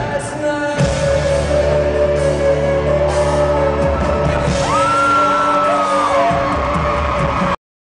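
Live rock band playing loud with electric guitars, recorded from the crowd. A chord is held for a few seconds, then a high note rises and slowly falls. It cuts off abruptly near the end.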